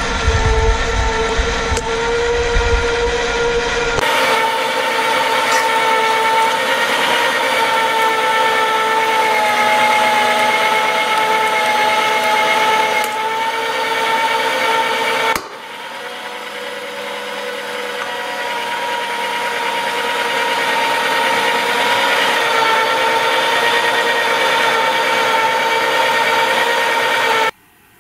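Electric meat grinder running, its motor whining steadily as the auger crushes hard, crunchy pink crystals. The sound drops and builds back up about halfway through and cuts off abruptly near the end.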